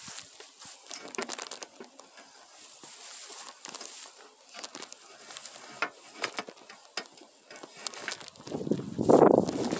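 Handling noise of someone moving about with a long aluminium pole: scattered crackles and clicks, then a louder rustle near the end.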